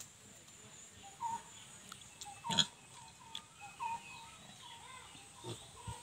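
Nepal-breed piglets making short calls, a handful spread across a few seconds, the loudest about two and a half seconds in.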